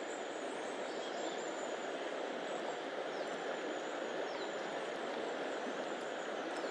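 Steady rushing of a river's fast current flowing past the bank.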